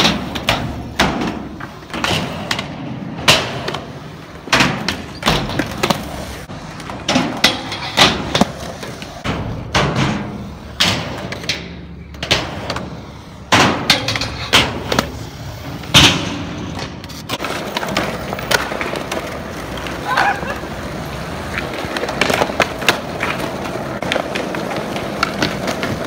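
Skateboards on concrete: repeated sharp clacks of boards popping and landing, with wheels rolling between them. From about two-thirds of the way in, the impacts thin out and a steady rolling noise takes over.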